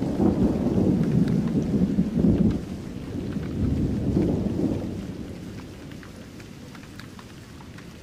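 Rain falling steadily with a long roll of thunder rumbling low. The thunder is loudest in the first half, swells once more around the middle and dies away over the last few seconds, leaving the rain hiss with scattered drop ticks.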